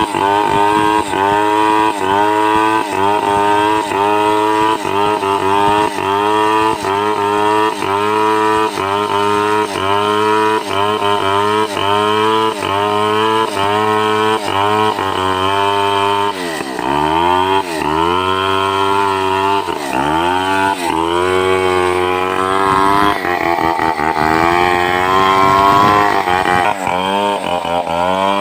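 Stihl 070 two-stroke chainsaw running at high revs while ripping a log lengthwise, its pitch wavering in a steady rhythm as the chain cuts. About two-thirds of the way through, the engine note drops sharply and picks up again several times.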